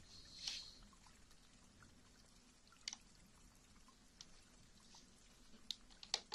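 Near silence with a few faint, sharp clicks scattered through it, and a brief soft hiss about half a second in.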